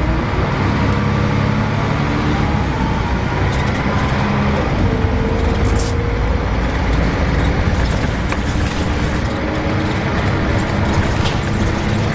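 Volvo B10BLE bus's six-cylinder diesel pulling under way, with a whine from its ZF automatic gearbox that climbs in pitch several times as the bus gathers speed.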